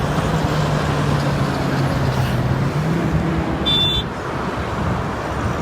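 Interstate traffic rushing past, with a semi-truck's steady low engine drone that rises a little in pitch about three seconds in and fades about a second later. A brief high chirp sounds near the end of the drone.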